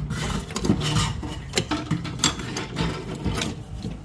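Fuel pump and sending unit assembly being worked out of the fuel tank by hand: irregular scraping and rubbing, with many sharp clicks and knocks.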